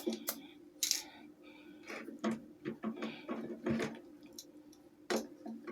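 Irregular light clicks and taps from the electric fan's mechanism being handled and worked while lubricating oil is sprayed in to cure its stiff squeak, over a steady low hum.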